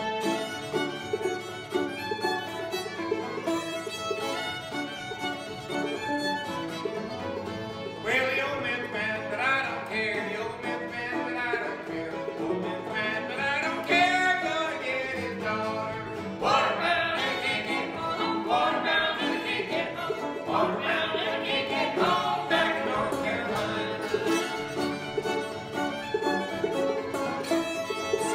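Old-time string band playing a tune on two fiddles, a five-string banjo and an acoustic guitar, growing fuller and a little louder about eight seconds in.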